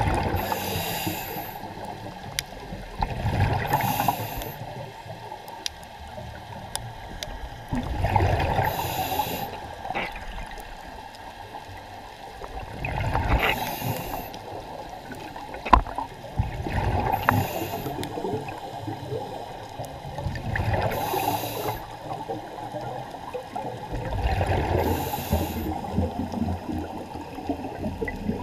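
Scuba diver breathing through a regulator underwater: a short hiss on each inhale and a bubbly gurgle of exhaust bubbles on each exhale, about seven breaths at roughly four-second intervals.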